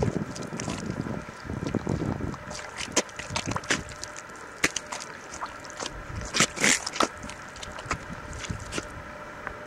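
Bare feet squelching in soft wet mud, making irregular sucking and popping sounds as they sink in and pull free. The sounds come thickest in the first couple of seconds, then as scattered sharp pops.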